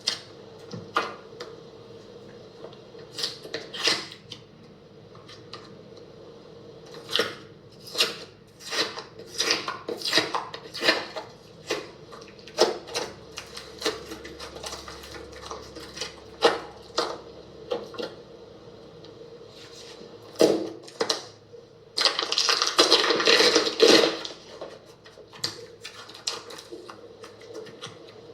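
Slime being squeezed and pressed by hand, giving irregular sharp clicks and pops, with a denser stretch of crackling lasting about two seconds near the end.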